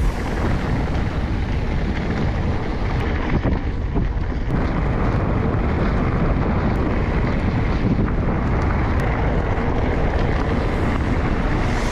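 Wind buffeting an action camera's microphone, over the rumble and rattle of a mountain bike riding on a dirt trail, with a few faint knocks.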